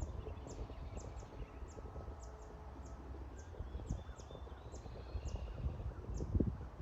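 A small wild bird calling with short, high, thin chirps, repeated about twice a second, with a few faint whistled notes in the middle, over a low rumble of outdoor noise.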